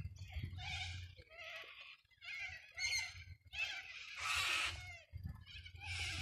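Birds giving a run of harsh, rasping calls, about half a dozen in a row, the loudest about four seconds in.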